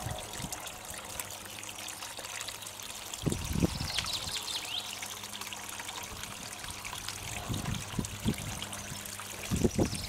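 Water trickling and splashing steadily as a small garden stream pours off the lip of a pond liner into a pond. There are a few dull low thumps about three seconds in and near the end.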